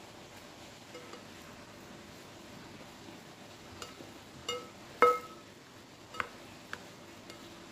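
A rice paddle clinks against the metal inner pot of a rice cooker while stirring cooked glutinous rice. There are about five short ringing knocks in the second half, the loudest about five seconds in.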